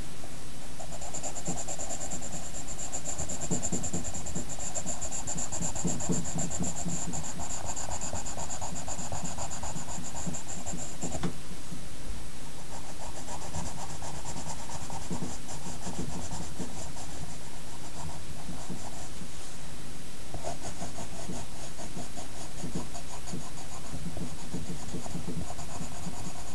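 Pencil shading on paper: rapid back-and-forth strokes in long runs, breaking off about eleven seconds in and briefly again near twenty seconds.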